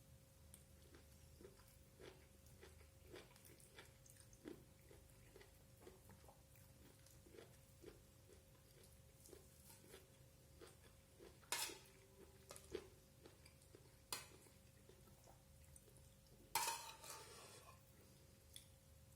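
Quiet eating: soft chewing and mouth sounds. About eleven, fourteen and sixteen and a half seconds in there are a few louder clinks of a utensil against a plate.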